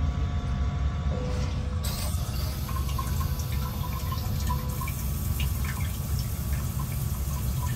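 Japanese electronic bidet toilet seat running its front (bidet) wash: a steady spray of warm water hissing against the bowl. The spray hiss comes in about two seconds in.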